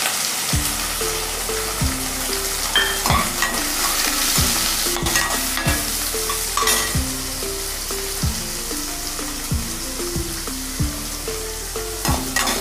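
Chopped onions, green chillies and curry leaves sizzling in hot oil in an aluminium kadai. A metal slotted spoon stirs them, scraping and clicking against the pan a few times. A soft background tune with a steady low beat runs underneath.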